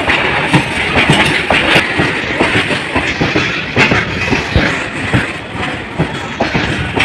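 Covered freight wagons rolling past close by, their wheels clacking over the rail joints in a rapid run of clacks over a steady rolling rumble and rattle.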